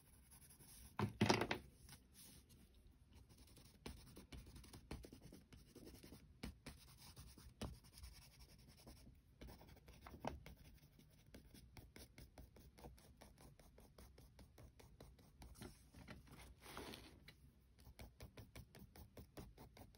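Wax crayon scratching on paper in many quick, short strokes, faint, as an area is coloured in. A brief louder bump about a second in.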